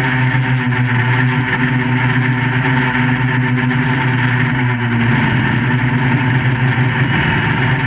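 Electric motors and propellers of a QAV400 FPV quadcopter in flight, a steady multi-tone buzz with airy prop hiss. The pitch wavers and shifts about five seconds in as the throttle changes, then steadies again.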